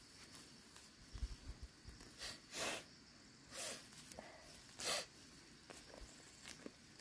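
Weeds being pulled up by hand: a few short rustling rips of stems and soil, four louder ones between about two and five seconds in, over a steady chirring of insects.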